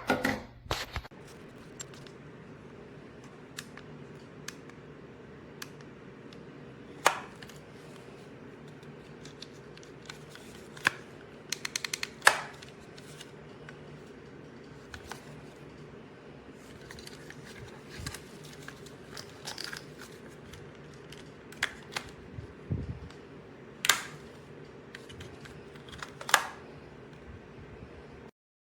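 Scattered sharp clicks and light knocks of a small plastic camcorder being handled and its buttons pressed, about a dozen in all, over a steady low hum. The sound cuts off abruptly just before the end.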